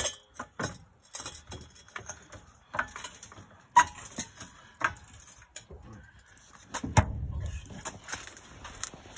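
Irregular metallic clinks and knocks from hand work on a truck, with a sharper knock about four seconds in and a heavier knock with a low thud about seven seconds in.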